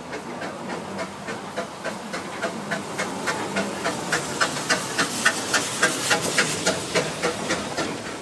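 Vale of Rheidol 2-6-2T narrow-gauge steam locomotives nos. 7 and 8, double-heading a train: a rapid, even chuffing of exhaust beats, about four a second, over a steady hiss of steam. The beats grow louder as the engines pass close beneath, loudest about five seconds in, and ease a little near the end.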